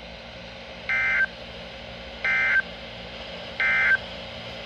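Emergency Alert System end-of-message data tones: three identical short digital bursts, each about a third of a second long and a little over a second apart. They signal the end of a National Weather Service severe thunderstorm warning.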